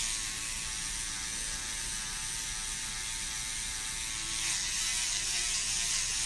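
SkinPen microneedling pen's small electric motor running, a steady buzzing whir as it drives the needle cartridge, its pitch wavering slightly.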